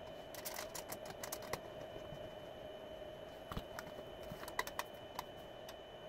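Faint, scattered light clicks and ticks of a small screwdriver and the metal and plastic parts of a DVD drive being taken apart, in a few short clusters over a faint steady hum.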